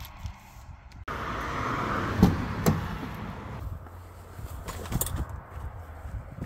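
Wind buffeting the microphone at first, then fabric rustling and a few sharp knocks as a jacket and bag are stuffed onto a car's passenger seat and someone climbs into the driver's seat.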